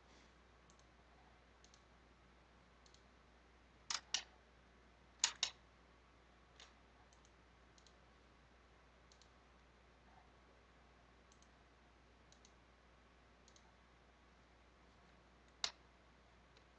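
Computer mouse clicks over a faint steady hiss: two quick pairs of clicks about four and five seconds in, a single click near the end, and very faint ticks in between.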